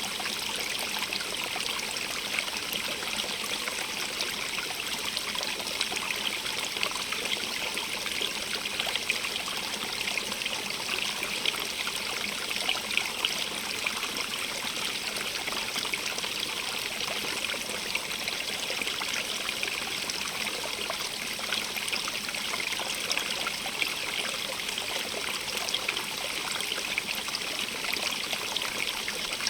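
Small stream running steadily over rocks, a continuous hiss of flowing water with little trickles and splashes.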